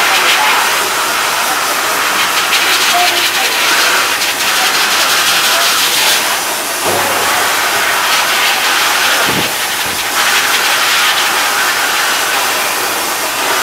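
Steady loud hiss of an oxygen-bath grooming hose spraying against a pug's wet coat.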